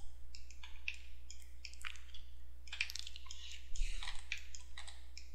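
Faint, irregular scratching and clicking from hands working a computer's pointing device, over a steady low electrical hum.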